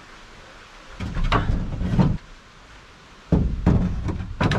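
Wooden pallet planks knocking and clattering against a pallet bed frame as pieces are fitted into place, in two bursts of sharp knocks.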